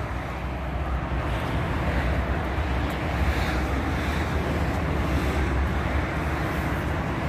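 Wind buffeting the microphone of a handheld phone: a steady, low, rumbling hiss with no breaks.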